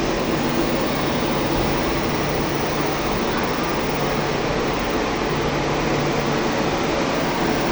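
Steady rushing hum of a passenger train at a station platform, as from its ventilation or air-conditioning units. A low steady tone joins the hum about five seconds in.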